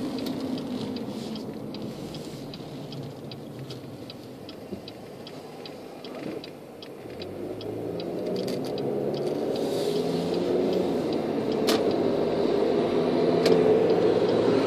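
A car's turn-signal indicator ticking evenly inside the cabin while the car waits to turn. The ticking stops about nine seconds in, and the engine and road noise then grow louder as the car pulls away and speeds up.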